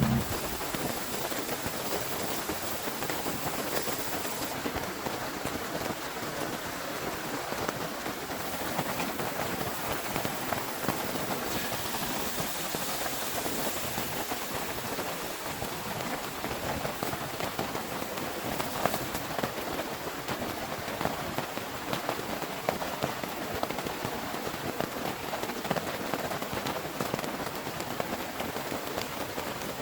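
Heavy rain falling steadily: an even hiss dotted with many sharp ticks of drops striking nearby surfaces.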